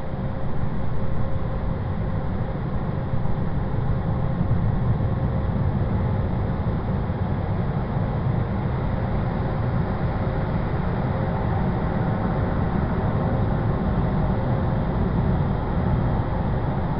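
Car wash running: a steady, low-heavy rush of machinery and water with a faint constant hum.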